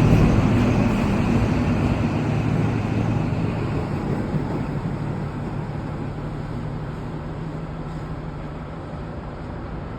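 XPT diesel power car's engine running under load as the train pulls away, with a low rumble that fades steadily as it recedes.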